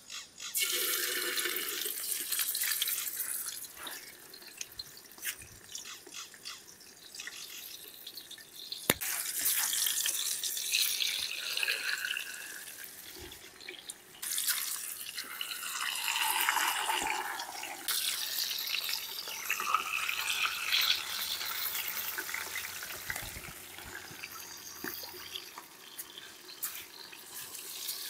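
Water splashing and trickling in several long stretches, with quieter gaps between them.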